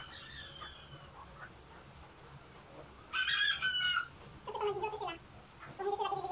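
Chickens calling: a crow of about a second begins about three seconds in, followed by shorter, lower calls near five seconds and again at the end. A steady, fast, high ticking of about five clicks a second runs underneath.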